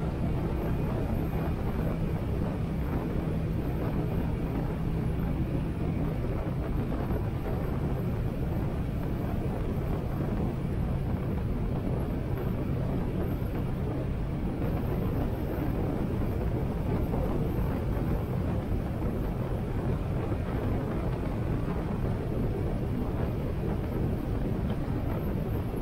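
Harley-Davidson Sportster 883's air-cooled V-twin running at road speed, with its note shifting about six seconds in, under steady wind rush on a helmet-mounted camera.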